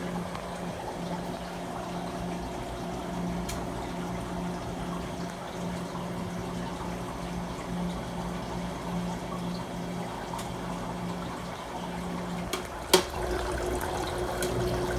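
Commercial ice machine running, with water splashing and trickling as it circulates under a steady motor hum. One sharp click comes near the end.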